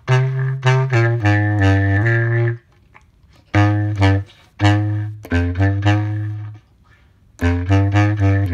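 Bass clarinet playing a spooky tune in short, separate low notes, in phrases broken by two pauses of about a second.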